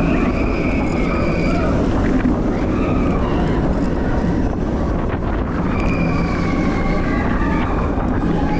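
Roller coaster train running along its track, heard from on board: a steady rumble of the wheels with wind buffeting the microphone. A thin high squeal rises over it twice, in the first second and a half and again from about six seconds in.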